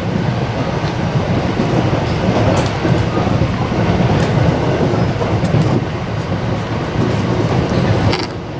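Interior running noise of a JR West 521 series electric train moving at speed: a steady low rumble of wheels on rail, with a few faint clicks. It gets slightly quieter near the end.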